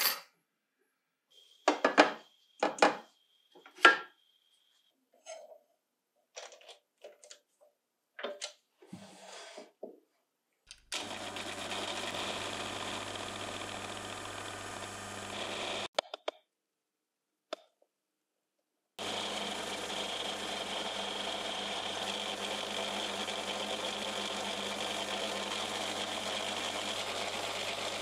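A series of clicks and knocks, with a thin high tone over the first few, then a small electric motor switched on and running steadily. It stops after about five seconds, then starts again a few seconds later and keeps running evenly.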